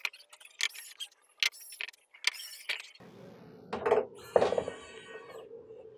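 A hand tool working on a TV's aluminium LED backlight bar and steel back panel: a quick run of sharp metallic clicks and scrapes. About halfway through a steady low hum comes in, followed by a couple of louder scrapes.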